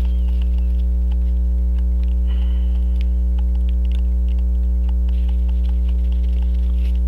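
Loud, steady electrical mains hum with a stack of overtones, under faint light clicks of small tools working on the watch movement.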